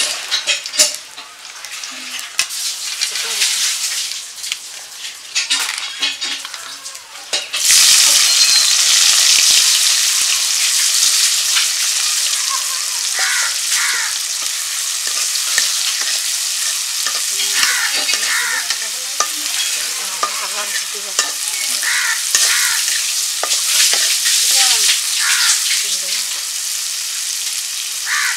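A metal spatula scrapes and knocks in a black iron karahi as fried fish pieces are lifted out. About seven and a half seconds in, sliced onions go into the hot oil with a sudden loud sizzle. The sizzle then runs on steadily under the scraping strokes of the spatula stirring them.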